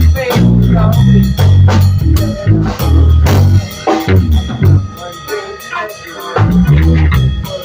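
Live band jamming: a drum kit playing a steady beat with kick and snare over a bass line moving through low notes. The bass drops out for a moment past the middle and comes back in.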